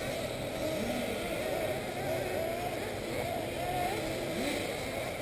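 Several 1/8-scale nitro RC buggy engines running around the track together as a high buzzing, their pitch rising and falling as they accelerate and back off.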